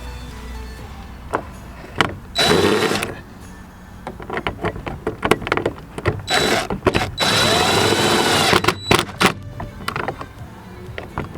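A small electric motor running in three short bursts, its pitch rising and falling in each, with scattered clicks and knocks in between.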